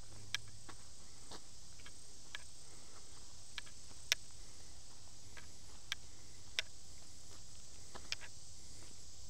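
Steady, high-pitched drone of summer insects in the woods, with about eight sharp, irregularly spaced clicks and ticks over it.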